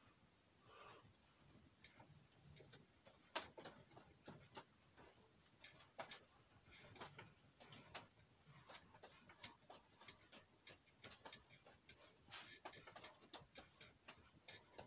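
Faint, irregular clicks and crackles, several a second, coming more thickly in the second half.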